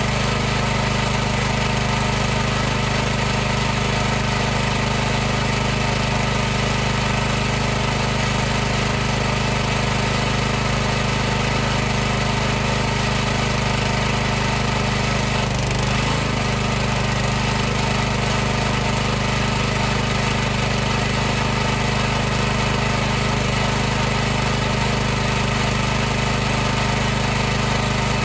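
High-pressure washer's motor and pump running steadily: a constant, loud mechanical hum with an even hiss above it.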